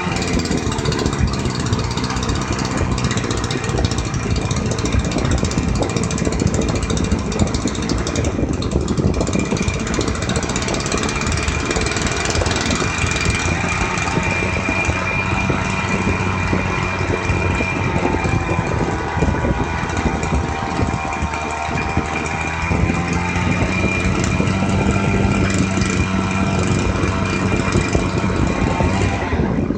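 Small engine of a portable engine-driven pump running steadily, its speed rising slightly about three-quarters of the way through. The engine has just had a new carburettor diaphragm and its air-fuel mixture set.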